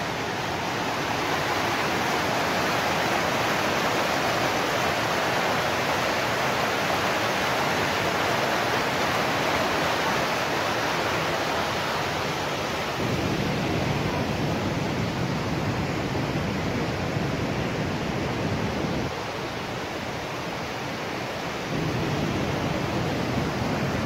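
A waterfall: a steady rush of falling water, its deeper rumble growing and fading a few times in the second half.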